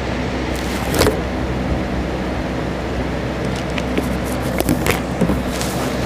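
Steady low mechanical hum, with a few sharp clicks and rustles about a second in and again between about three and a half and five seconds.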